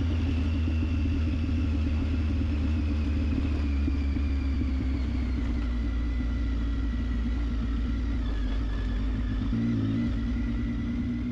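Triumph Tiger 800XC's three-cylinder engine running steadily while the motorcycle is ridden, with a high whine slowly falling in pitch. The engine note changes briefly near the end.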